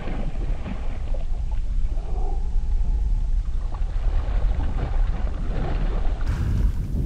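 A tiger muskie thrashing and splashing at the water's surface as it is scooped into a landing net, over a steady low rumble of wind on the microphone.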